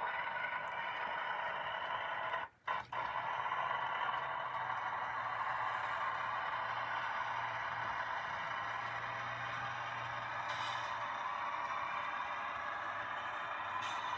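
Model GE Tier 4 GEVO diesel locomotive running at low speed, its sound decoder playing a steady diesel engine drone over the rolling and mechanical noise of the model on the track. The sound cuts out briefly twice about two and a half seconds in.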